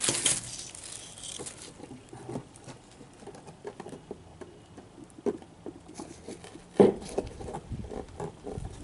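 A fork and chopsticks poking and scraping through a cardboard box: irregular scratching and small taps. There is a sharp scratchy burst at the start and a louder knock near the end.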